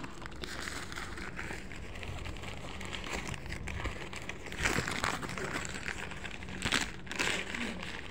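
Plastic wrapping crinkling and rustling as it is handled and unwrapped, with louder rustles about halfway through and again near the end.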